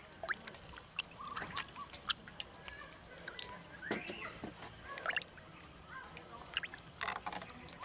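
Water splashing and sloshing in a stainless steel bowl as hands grab and lift eels, with irregular small splashes, drips and clicks.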